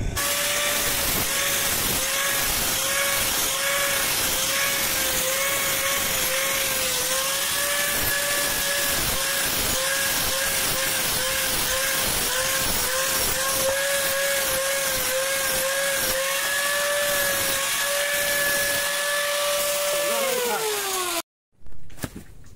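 Handheld angle grinder grinding the steel edge of a hand-forged dao blade, its steady whine dipping again and again as the disc bites into the metal. About twenty seconds in it is switched off and the whine falls in pitch as the disc spins down, followed by a brief loud sound.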